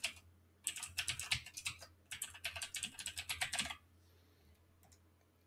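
Typing on a computer keyboard: a quick run of keystrokes with a brief pause in the middle, stopping about four seconds in.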